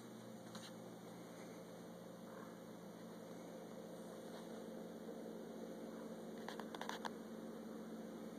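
Steady low electrical hum over faint hiss, with a quick cluster of clicks about six and a half seconds in.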